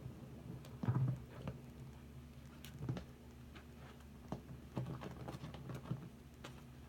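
Soapy sponges squeezed and kneaded by hand in a sink of sudsy water: irregular wet squelches and squishes, the loudest about a second in.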